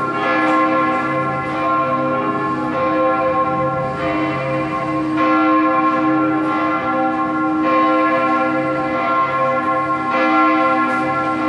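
Church bells ringing from a clock tower: several bells of different pitches sound together, with a fresh stroke about every second and a quarter and each tone ringing on between strokes.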